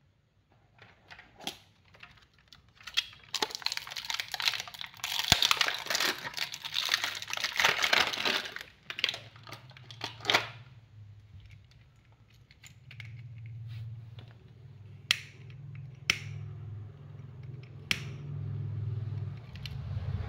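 Close rustling, crinkling and clicking of things being handled, busiest in the first half, then a steady low rumble with a few sharp clicks.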